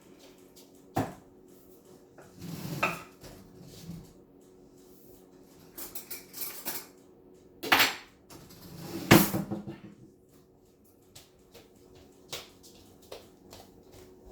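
Dishes and cutlery clattering, with separate sharp knocks and clinks, the loudest about eight and nine seconds in, over a steady low hum.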